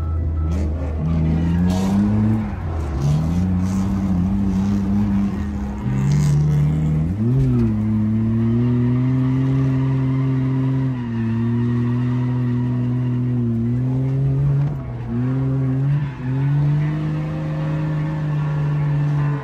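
BMW E46 drift car's engine held high in the revs for long stretches, the revs dropping and climbing back several times, with tyres squealing as the car slides.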